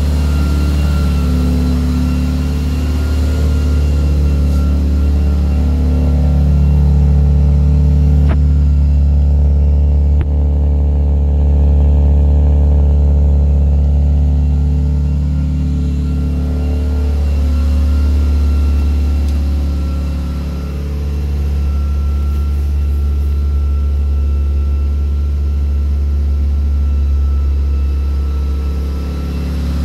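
Lancia Delta HF Integrale Evo 2's turbocharged two-litre four-cylinder engine running at idle, its speed rising and falling slightly.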